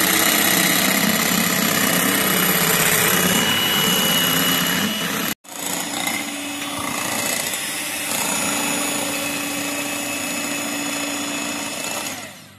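Electric hand mixer running, its twin beaters whipping cream with icing sugar into stiff peaks in a glass bowl. A steady whir with a very short break about five seconds in; it stops near the end.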